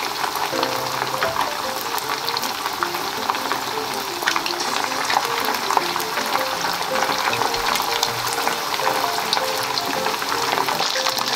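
Pieces of karaage deep-frying in a pot of hot oil: a dense, steady crackling sizzle with many small pops. Soft background music plays a simple melody underneath.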